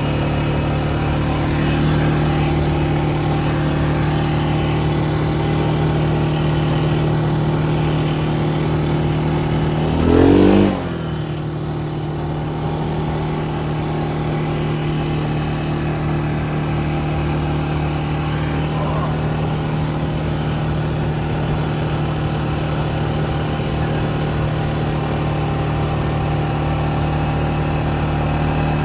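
Vehicle engine running steadily under way, with a brief, louder sound rising in pitch about ten seconds in.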